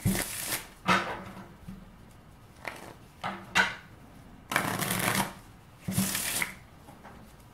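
A deck of playing cards being riffle-shuffled on a wooden tabletop: a string of short fluttering riffles and snaps of the cards, the two longest riffles a little over halfway through.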